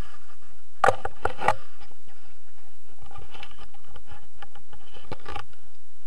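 Wind buffeting an action camera's microphone, with rustling and a few sharp knocks from the camera being handled against the paragliding harness, a cluster of knocks about a second in and two more near the five-second mark.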